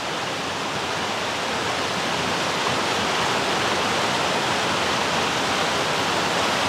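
Small waterfall and rapids rushing over rocks: a steady, even rush of water that grows slightly louder.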